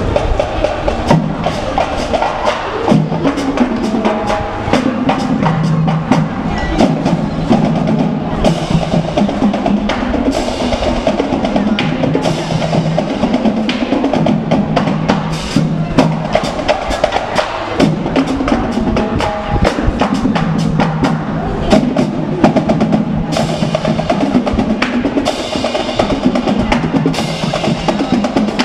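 Marching band playing a tune on brass instruments over snare and bass drums beating a steady march rhythm.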